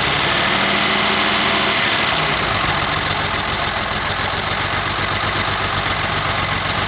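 1970 Mercedes 250's 2.5-litre inline-six engine running on freshly rebuilt twin Zenith 35/40 carburettors. It runs rough, which the owner puts down to bad spark plugs and carbs not yet tuned.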